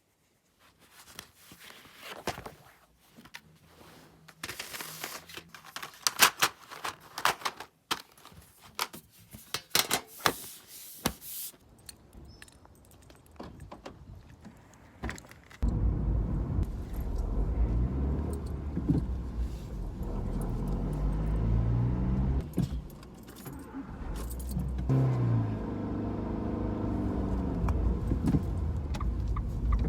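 A bunch of keys jangling and clinking for several seconds. About halfway through, a car engine comes in sharply and runs loudly, its pitch climbing and dropping back a few times as the car drives off.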